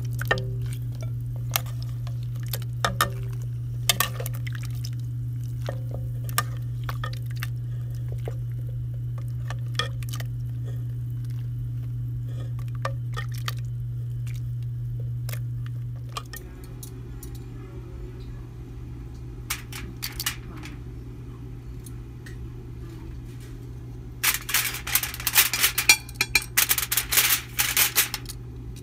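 A ladle clinking and scraping against a pot while stirring cut squash in water, with scattered sharp taps over a steady low hum that drops in level about halfway through. Near the end, aluminium foil crinkles in a dense run of crackles.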